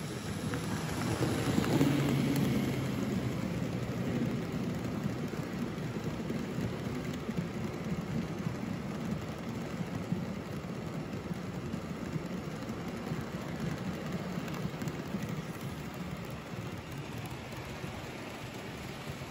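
N-scale model freight train running past on table-top track: a steady rattling clatter of its small wheels on the rails with a low hum beneath, loudest about two seconds in and easing off slowly.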